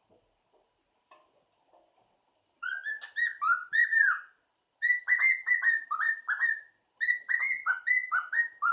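Three-month-old cockatiel chick whistling. After a couple of seconds of quiet come three short runs of clear, arching whistle notes, each run about two seconds long.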